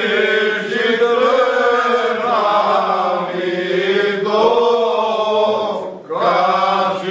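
A group of men in traditional Cretan dress singing a slow song together without instruments, with long held, sliding notes. The phrase breaks off about six seconds in and a new one begins at once.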